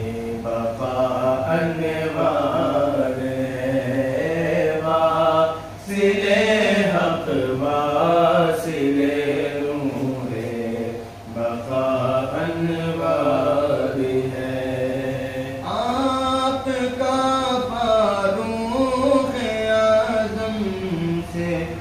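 A man's voice chanting a manqabat, an Urdu devotional praise poem for a Sufi saint, in long drawn-out melodic phrases with brief breaks between them.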